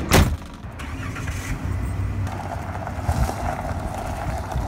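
A single sharp knock, then a Dodge ProMaster camper van running steadily, with a steady rumble that fills out about halfway through.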